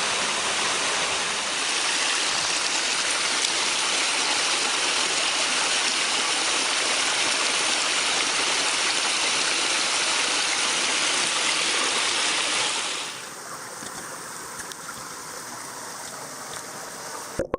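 Mountain stream rushing over rocks: a steady, loud hiss of running water. About 13 seconds in it drops abruptly to a much quieter background.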